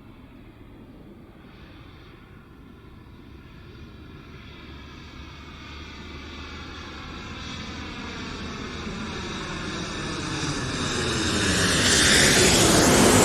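Boeing 747 jet airliner's four turbofan engines approaching on a low overhead pass, the jet noise swelling steadily louder with a sweeping whoosh, loudest near the end as it comes overhead.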